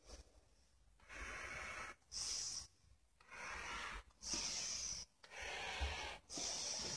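A person breathing hard through a face mask close to the microphone: about three slow breaths in and out, each a rush of air under a second long, with short pauses between.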